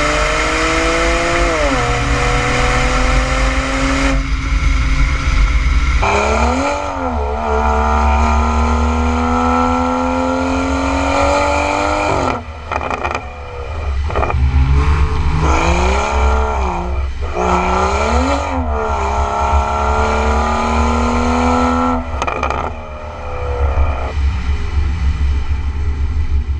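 BMW 335i turbocharged straight-six through a valved aftermarket exhaust, pulling hard through the gears: the engine note climbs steadily, drops at each shift and swells again on throttle blips, with a couple of brief lifts off the throttle.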